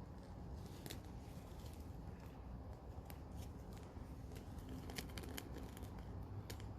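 Scattered light clicks and rustles of things being handled, over a steady low background noise.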